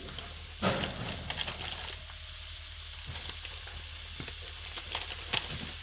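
Thinly sliced ribeye with peppers and onions sizzling on an electric griddle, with scattered crackles and a sharp tap a little over half a second in.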